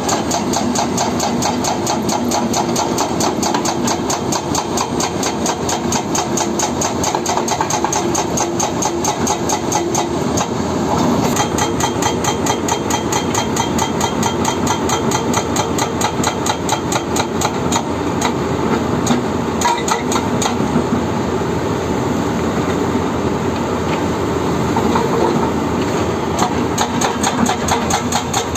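Excavator-mounted hydraulic breaker hammering rock in a rapid, steady run of blows, several a second, over the excavator's running engine.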